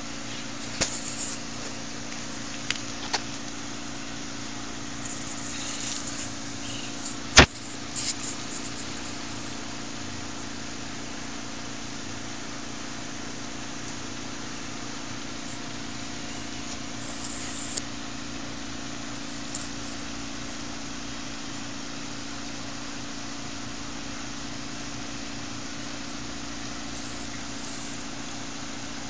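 A machine running with a steady low hum, broken by a few sharp clicks in the first eight seconds, the loudest about seven seconds in.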